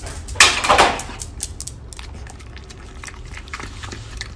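Foil lid being peeled off a small plastic yogurt cup with a loud ripping crackle about half a second in, followed by a run of light clicks and taps.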